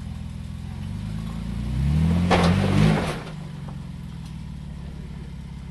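Off-road vehicle's engine idling, then revving up for about a second and a half with a short burst of rough scraping noise over the top, then dropping back to idle as it tries to climb a steep rock ledge.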